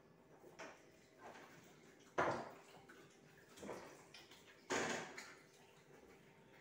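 Metal cookware being handled on a gas stove: two sharp knocks with a brief ring, about two and a half seconds apart, as pots and a kettle are set down on the burner grates, with lighter clatters between.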